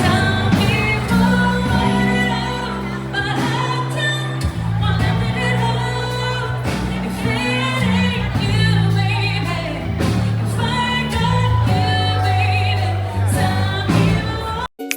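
Background pop song with a sung vocal over a steady bass line, cutting off abruptly near the end as a different, lighter piece of music begins.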